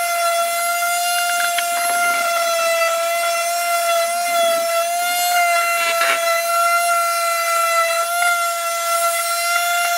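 Corded electric palm sander running steadily against wood, a constant high-pitched whine with a hiss over it.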